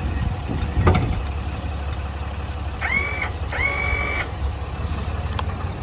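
The service truck's 6.7 Cummins diesel running steadily at idle, with a sharp knock about a second in, two short high-pitched squeals in the middle and a click near the end as the crane is worked.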